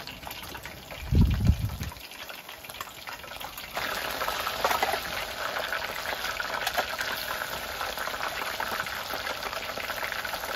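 Battered squid frying in hot oil in a small camping fryer pot on a gas burner: a loud, steady sizzle with crackling that starts about four seconds in. A brief low rumble about a second in.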